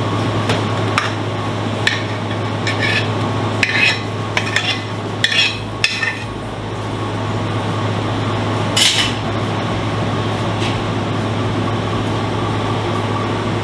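Metal ladle and dishes clinking as curry is spooned into a ceramic bowl: a run of light clinks over the first six seconds and a sharper one about nine seconds in, over a steady low hum.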